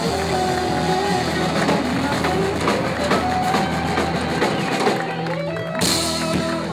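Live rock band of electric guitar, keyboard and drums playing the last bars of a song. About five seconds in the bass drops out, and the band ends on a held chord with a cymbal crash.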